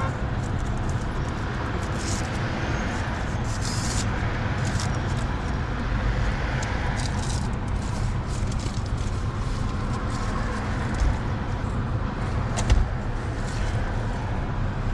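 Car's engine and road noise heard from inside the cabin, a steady low rumble, with a couple of brief knocks near the end.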